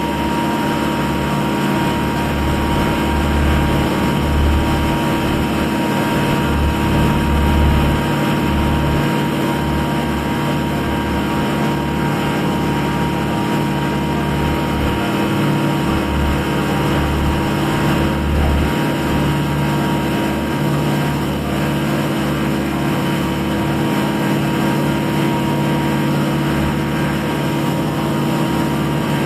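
A small passenger ferry's engine running steadily, a constant hum under a low rumble that swells and fades.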